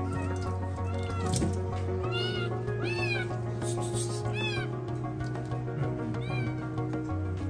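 Young kitten meowing repeatedly while being bathed: about six short, high-pitched cries that rise and fall.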